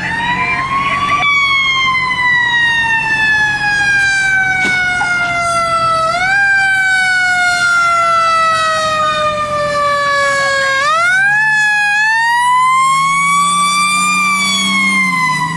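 Fire engine siren wailing. Its pitch slides slowly down and is pushed back up several times, with a small rise about six seconds in and a big rise about eleven seconds in.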